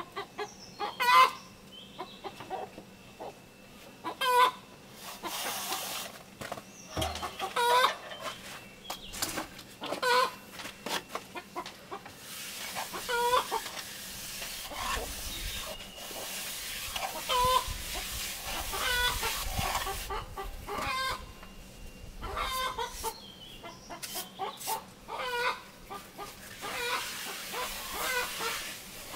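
Chickens clucking, short calls recurring every second or two, over the scraping of a plastering trowel spreading cement mortar on a wall.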